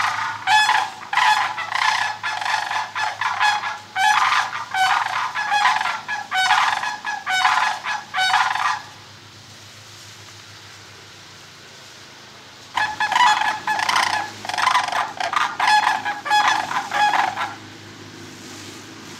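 Sandhill cranes giving their loud, rolling, rattling bugle calls, one call after another for about nine seconds, then a pause of about four seconds, then a second run of calls for about five seconds. The cries are a warning at a person approaching too close.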